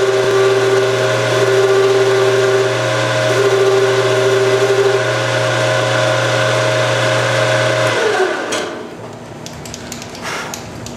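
Small metal lathe running while a cutting tool faces the end of a 2-inch metal tube: a steady motor hum and whine, with a higher tone that comes and goes. About eight seconds in the lathe stops and its pitch falls away, followed by a few light clicks.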